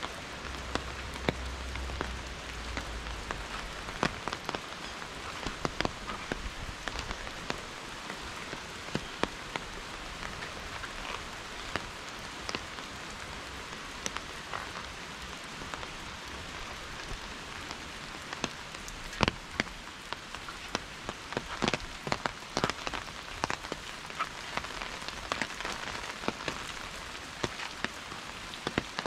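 Steady rain falling, with frequent sharp drops striking close by.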